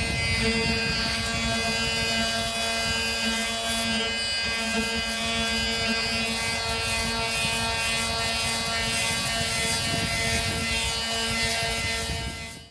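Small electric power tool running steadily, a high whine with many overtones over a rough grinding noise: the old J-B Weld patch being sanded off the leaking gas tank.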